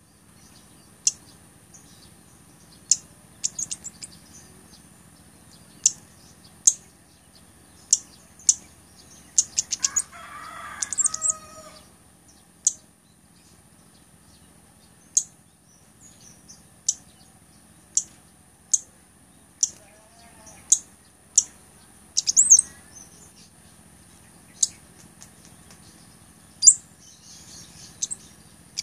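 Cabai gunung (blood-breasted flowerpecker) calling: sharp, high, very short notes, singly or in quick clusters, every second or two. A longer, lower sound breaks in about ten seconds in.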